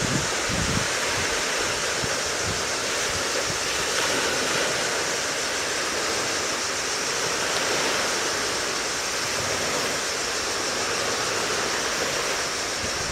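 Steady wind noise: an even hiss, with a few low gusts buffeting the microphone in the first second.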